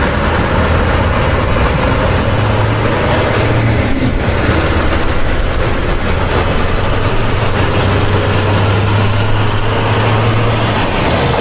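Truck engine running steadily: a loud, even rumble with a low hum under a hiss.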